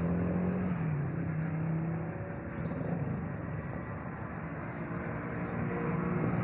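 Steady motor-vehicle noise: a car engine humming with road or traffic noise.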